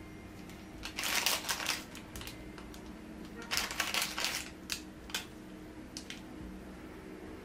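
Plastic-gloved fingers rustling and crinkling as they handle and set gummy candies onto ice cream rolls, in two short bursts with a few light clicks after, over a steady low hum.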